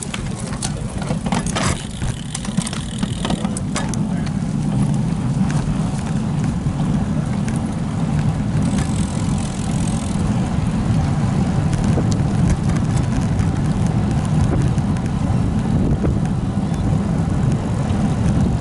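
Steady low wind rumble on the microphone of a camera moving along on a road bike, with a few sharp clicks in the first four seconds.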